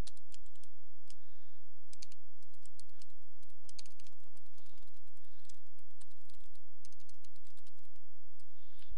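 Computer keyboard typing: irregular runs of keystrokes clicking throughout, over a steady low hum.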